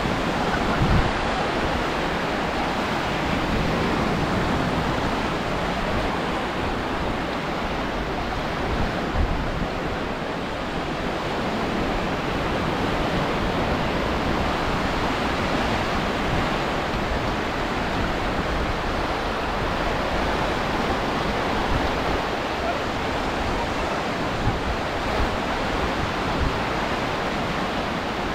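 Steady wash of sea surf on a beach, with wind buffeting the microphone in low rumbles.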